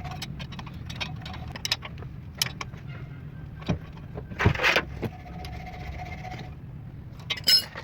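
Car engine running steadily, with many scattered metallic clicks and knocks, and a louder clatter about four and a half seconds in and again near the end.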